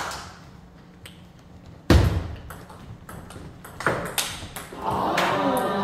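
Table tennis rally: the ball clicking off the paddles and the table in quick alternation, opening with one much louder, heavier hit about two seconds in. People's voices come in near the end.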